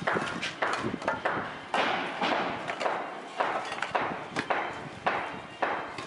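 Construction-site work noise: a regular run of rough knocks and scrapes, about two a second.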